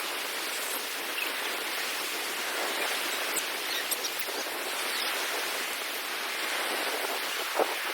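Steady rushing hiss of ocean surf, with a brief louder knock near the end.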